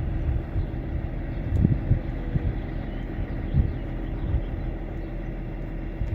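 A car running, a steady low rumble of engine and road noise, with a few short low thumps.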